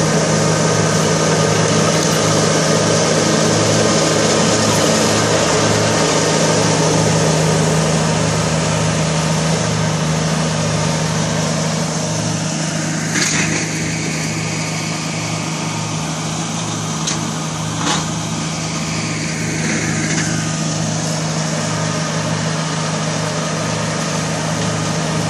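Kubota BX2350 compact tractor's three-cylinder diesel engine running steadily under load, driving a rear-mounted brush mower through thick weeds and brambles. There are two sharp cracks about halfway through, five seconds apart.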